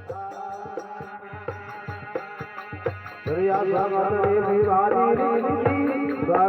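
Instrumental opening of a Rajasthani desi bhajan: regular hand-drum beats over a steady drone, with a louder wavering melody coming in about three seconds in.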